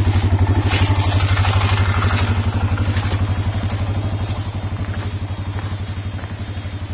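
ATV engine idling with a steady, rapid, even pulse, easing slightly quieter over the last few seconds.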